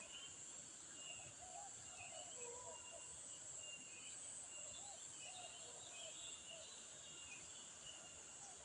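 Faint woodland ambience: birds giving short repeated chirps and calls over a steady high-pitched insect drone.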